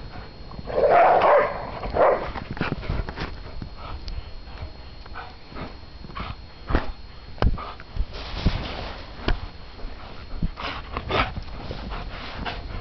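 Greyhounds playing in snow: a loud dog vocalisation about a second in and another near two seconds, then scattered short dog sounds among irregular knocks and scuffles.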